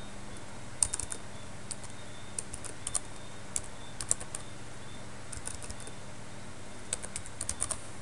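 Typing on a computer keyboard: key clicks in short bursts separated by pauses, as a word is typed and corrected.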